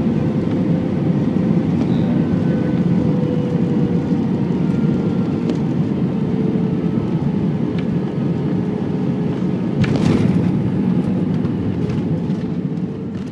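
Cabin noise of an Airbus A320 rolling along the runway just after landing: a steady engine and airflow rumble with a faint engine tone that slowly drops in pitch as the engines spool down. There is a single brief knock about ten seconds in, and the sound fades out at the very end.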